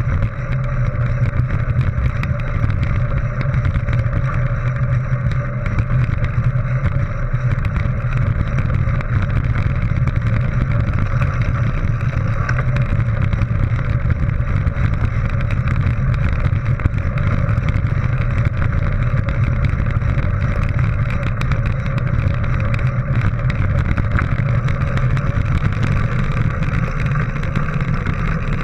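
Steady rush of wind and rumble of bicycle tyres rolling over a gravel dirt track, picked up by a GoPro HERO 3 strapped to a mountain bike rider's chest, with faint small clicks from stones and the bike.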